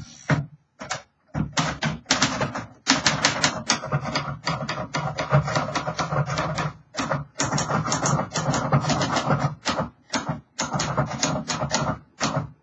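1954 Royal Quiet DeLuxe manual typewriter being typed on: fast runs of keystrokes, several a second, broken by short pauses.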